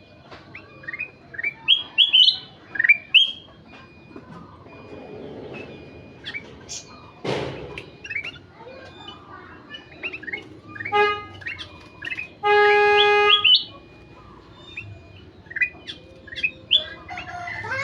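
Kutilang emas bulbul singing actively, a stream of short chirps and quick rising whistled notes. About seven seconds in there is a brief sharp sweep, and a little past the middle a loud, steady, reedy tone lasts about a second.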